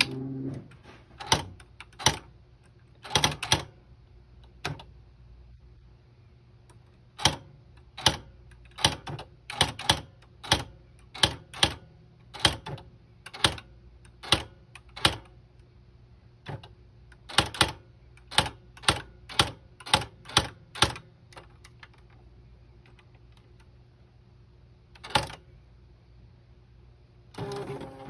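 Smith Corona Memory Correct electronic typewriter being typed on: sharp printing strikes come one at a time in irregular runs, with short pauses, over a steady low hum. A longer mechanical noise comes near the end.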